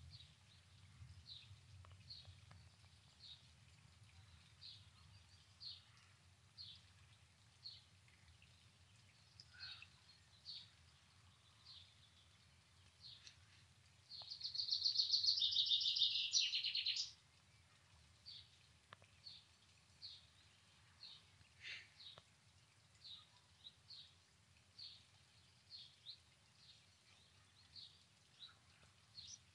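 Songbirds chirping: short high chirps repeating about once a second, and about halfway a loud rapid trill lasting about three seconds that drops lower in pitch at its end.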